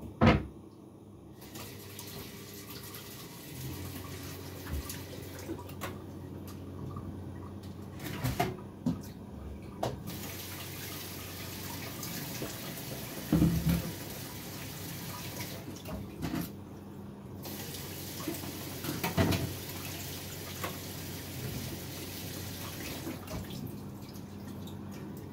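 Kitchen tap running into a sink in spells, stopping briefly a few times, with several sharp knocks like dishes or utensils bumping in the sink.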